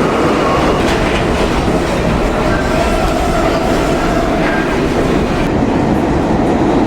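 Train running along the rails: a loud, steady rumble and rattle, with faint held whining tones over it.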